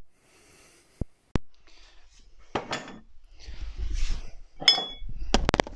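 Glassware being handled as a beer glass and bottle are got out and set down. There are two sharp clicks about a second in, then rustling and clinks, then a short ringing glass clink and a quick run of knocks near the end.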